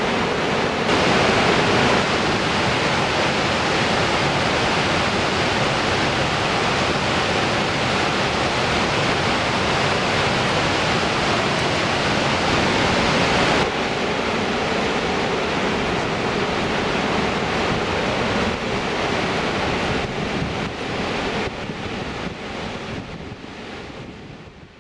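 Waterfall on the Cullasaja River: a steady rush of falling water. It shifts abruptly in level a few times, then fades out near the end.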